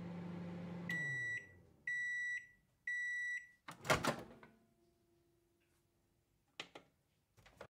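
Microwave oven humming as it runs, winding down about a second in, then three half-second beeps marking the end of the cooking time. The beeps are followed by a loud clatter as the door is opened, and two faint clicks near the end.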